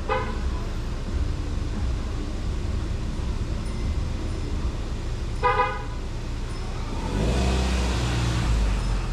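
A vehicle horn gives two short toots, a brief one at the start and a louder one about five and a half seconds in, over a steady low street rumble. Near the end a vehicle passes close and the rumble grows louder.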